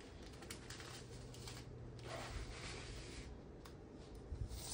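Faint rustling of hands and a tape measure sliding over a diamond painting canvas, with a few light taps.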